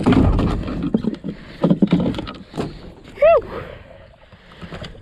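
Knocks, thumps and rustling from gear being handled aboard a plastic fishing kayak on the sea. About three seconds in comes one short, loud squeak that rises and falls in pitch.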